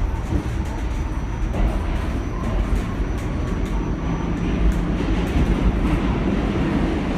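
Pullman Standard R46 subway car running on the rails, heard from inside the car: a steady rumble of wheels and running gear, with scattered sharp clicks throughout.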